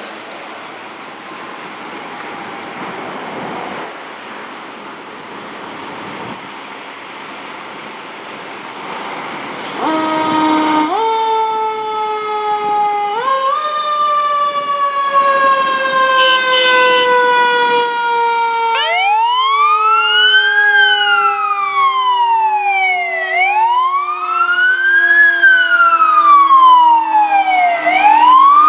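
Fire truck sirens. After a stretch of steady background noise, a siren winds up twice in quick succession and then slowly winds down. About two-thirds in, a wailing siren joins it, rising and falling about every four and a half seconds.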